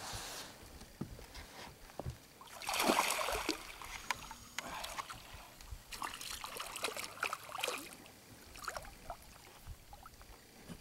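A large silver pike thrashing and splashing at the water's surface beside a boat while hooked on a rod. There are two rushes of splashing, the loudest about two and a half seconds in and another a little past the middle.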